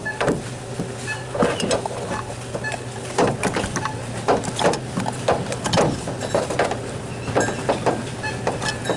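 Irregular knocks and clatters, several a second at times, over a steady low hum.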